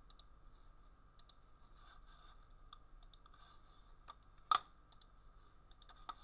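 Faint scattered clicks of a computer mouse and keyboard, with one louder click about four and a half seconds in, over a faint steady hum.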